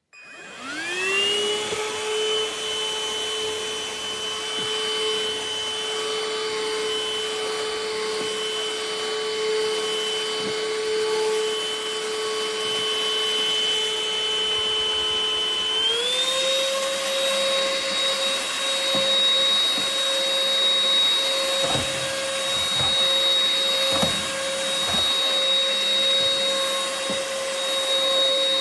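UML0 N8 cordless stick vacuum's motor starting up with a rising whine, then running steadily. About sixteen seconds in, its pitch steps up to a higher steady speed, and a few light knocks follow.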